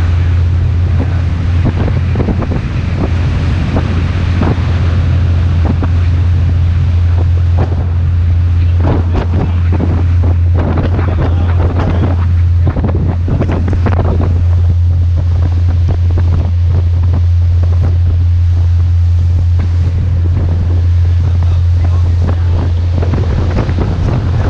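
Twin diesel engines of a 54-foot Hatteras Convertible running at speed, a steady low drone, with heavy wind noise on the microphone and rushing water from the hull and wake.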